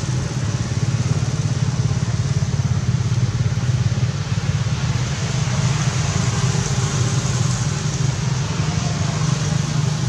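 Steady low rumble of a motor vehicle engine running at idle, unchanging throughout.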